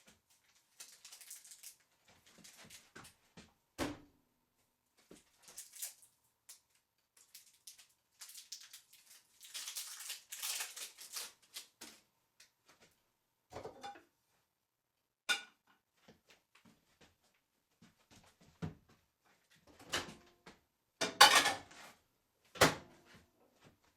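Scattered handling clatter: irregular knocks and clinks like dishes being set down, with a stretch of rustling around the middle and a few sharper knocks near the end.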